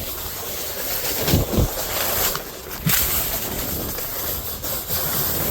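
Snowboard base and edges scraping and sliding over slushy spring snow: a continuous hiss with uneven rasping scrapes.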